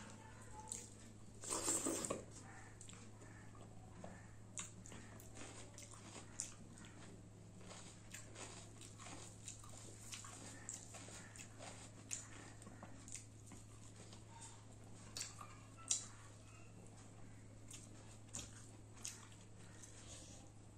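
Faint close-up eating sounds of a person eating rice and dal by hand: chewing and mouth clicks, with scattered small clicks, and one louder noisy burst about one and a half seconds in.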